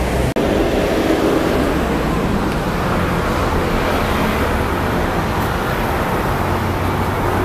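Street traffic noise: a steady rush of cars and motor vehicles on a town road, broken by a split-second gap just after the start.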